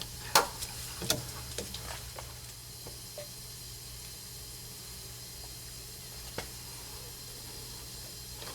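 A few light clicks and taps as plumbing fittings are handled, mostly in the first couple of seconds with one more near the end, over a steady low hum and faint hiss.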